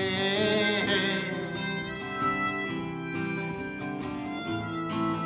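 Acoustic guitar playing an instrumental break in a folk song, with a held sung note fading out about a second in.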